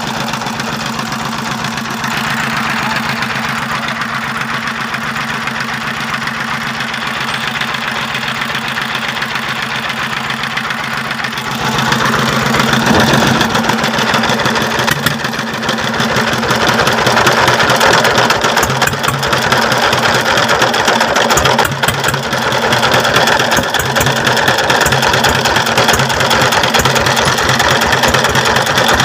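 S1100 16 hp single-cylinder diesel engine, converted to direct injection with a long injector nozzle, running with an even knocking beat. It grows louder from about twelve seconds in.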